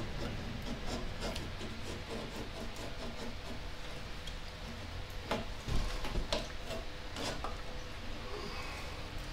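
Repair tools rubbing on a brass trumpet bell during dent work, with scattered light taps and clicks, a few sharper ones about halfway through.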